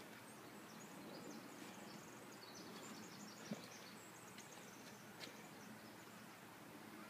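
Near silence: quiet outdoor background with faint, high chirps of distant birdsong, and one soft tap about three and a half seconds in.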